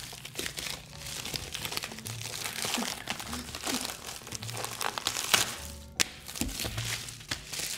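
Paper and plastic packaging crinkling and rustling with irregular crackles as it is opened by hand.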